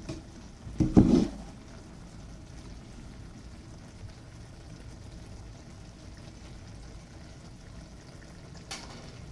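A metal spoon turning cooked biryani rice in an aluminium pot, with a brief loud knock or scrape against the pot about a second in and a softer one near the end, over a steady low hiss.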